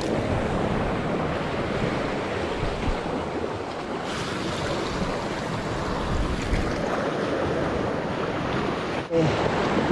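Sea surf washing on the beach, a steady rushing noise, with wind buffeting the microphone.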